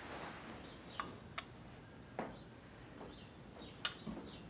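Quiet room sound with a few light, sharp clicks and knocks, about one, one and a half and nearly four seconds in. Faint short bird chirps can be heard in the background.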